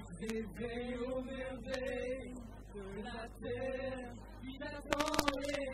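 Voices singing karaoke through microphones, holding long, wavering notes, with a few sharp clicks about five seconds in.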